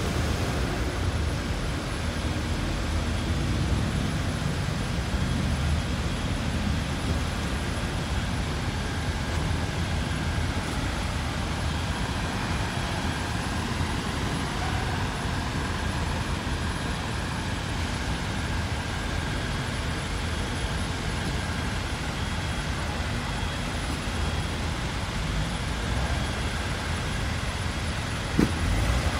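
Steady city traffic noise: a low rumble of vehicles on the street, with one short knock near the end.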